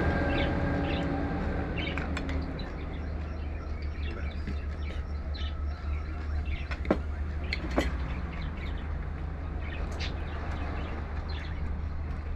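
Small birds chirping over a steady low hum, with a passing vehicle fading away in the first couple of seconds. Two sharp clinks, cutlery on a plate, about seven and eight seconds in.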